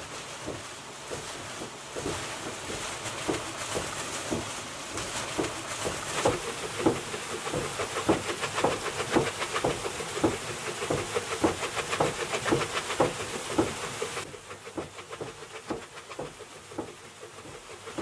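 Water rushing and splashing: a steady hiss with many irregular splash hits. It drops in level about fourteen seconds in.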